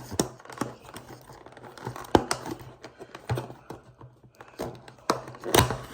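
Fingers prying and working at the tucked-in end flap of a small cardboard box, making scattered light clicks, taps and scrapes, with a few sharper snaps about two seconds in and near the end as the flap comes free.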